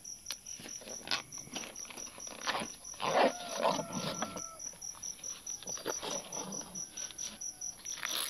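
Crickets chirping steadily at about four pulses a second, over rustling and small clicks from a black fabric pouch being opened and searched by hand. About three seconds in, a short animal call with a held pitch sounds from further off.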